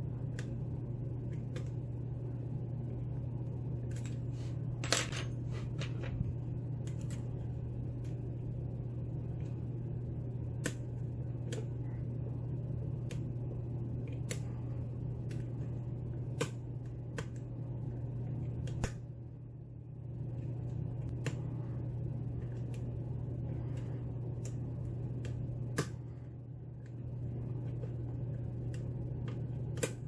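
Small, irregular metallic clicks and ticks of a hook pick and tension wrench working the pins inside a Falcon pin-tumbler lock cylinder, the strongest about five seconds in, over a steady low hum.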